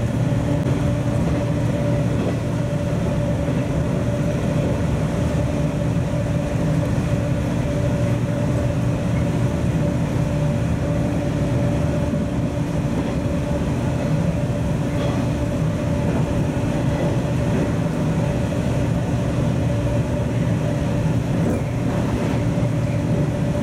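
Former JNR express-type electric train running at a steady speed, heard from behind the driver's cab: a steady hum with two held pitches over the rumble of wheels on the rails.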